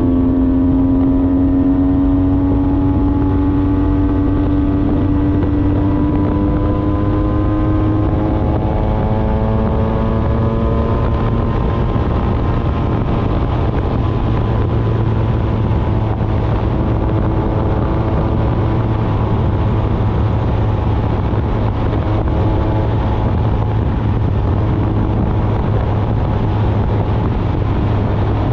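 Honda NSR 125's single-cylinder two-stroke engine running at road speed, its pitch rising slowly over the first dozen seconds as the bike gathers speed, then holding steady. Wind and road rumble run underneath.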